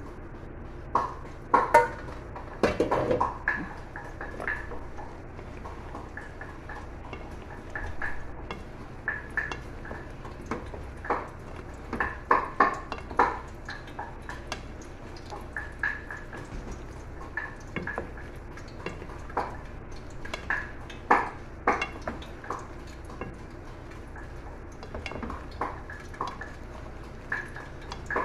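A wooden spatula stirring shrimp in a metal pot, knocking and scraping irregularly against the pot. A louder clatter in the first few seconds as the metal lid comes off.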